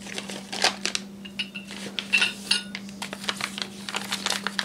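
Metal kit parts clinking and knocking as they are handled on a wooden workbench and rummaged from a cardboard box. Several clinks ring briefly; these are the steel wheelsets and the bagged journal boxes of a ride-on railroad truck kit.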